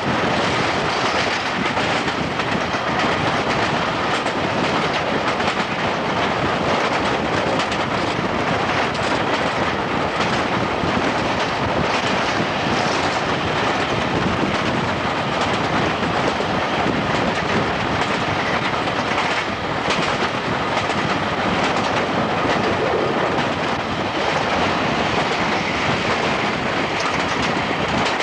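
Class 504 electric multiple unit running at speed, heard from an open carriage window: the steady noise of the ride with the wheels clattering over the rail joints.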